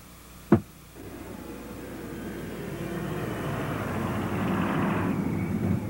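A sharp snap about half a second in as a suitcase is shut, then the noise of a jet airliner's engines rising steadily over the next few seconds.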